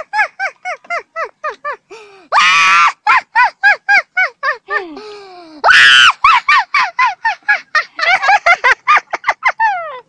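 A girl laughing hard in rapid cackling "ha-ha" bursts, about five a second, each one dropping in pitch. Two longer, loud high shrieks break in, about two and a half seconds in and again about six seconds in. The laughter cuts off suddenly at the end.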